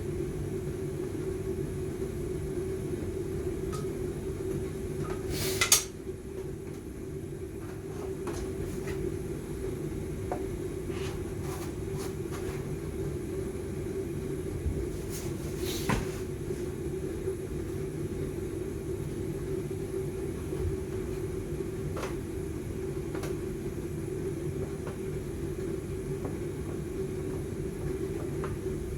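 A steady low machine hum runs throughout. Over it come occasional clicks and knocks from the plastic headlight lens and housing being handled as the lens is fitted, the sharpest about six seconds in.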